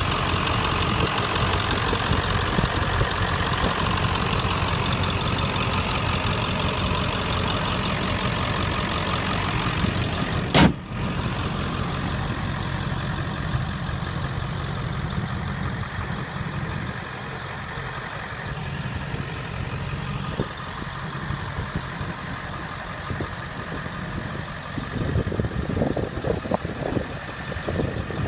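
Ford 7.3 L Powerstroke V8 turbo diesel idling steadily with its diesel clatter. A single sharp knock about ten seconds in, and a few lighter knocks near the end.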